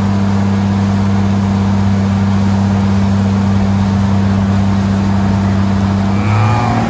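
Powered work lift raising, its motor giving a loud, steady hum that shifts slightly in pitch near the end.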